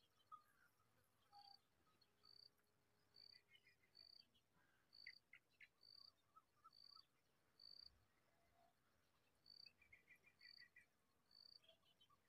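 Faint chirping: short high notes repeated at a steady pitch about once or twice a second, with a couple of brief rapid trills lower down.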